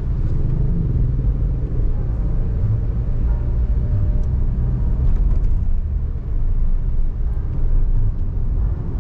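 Steady low rumble of a car's engine and road noise, heard from inside the moving car's cabin.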